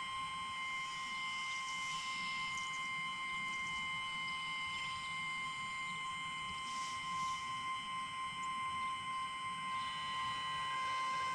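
Battery-powered electronic instrument holding a steady, high drone tone with overtones, a second pitch joining in near the end.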